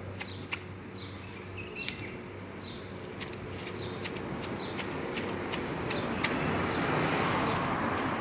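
Garden shears snipping branches and leaves in a string of sharp, irregular clicks, about two or three a second. Short falling bird chirps are heard in the first half, and leafy rustling grows louder near the end.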